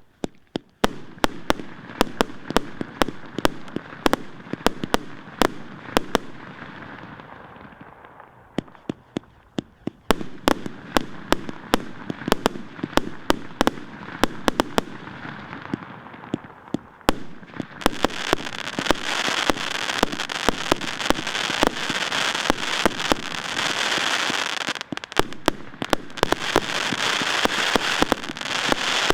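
Fireworks going off in a long rapid string of sharp bangs, each early one trailing off in a fading fizz. The bangs thin out for a couple of seconds about a third of the way in, then resume, and from about two-thirds through a dense crackling sets in under them.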